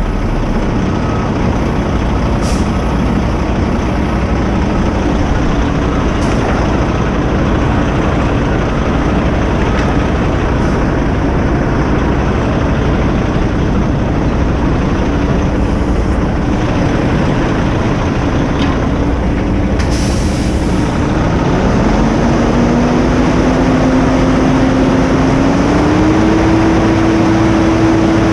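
Heavy diesel truck engine running steadily, then raised to higher revs in two steps near the end and held there. A brief air hiss comes about twenty seconds in.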